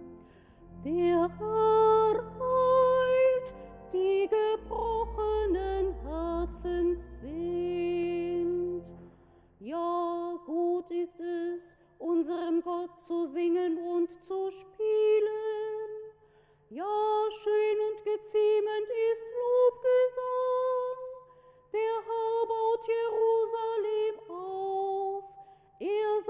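A woman singing the responsorial psalm solo, one held melody line. Low instrumental accompaniment runs under her for about the first nine seconds, then her voice carries on nearly alone over a faint low sustained note.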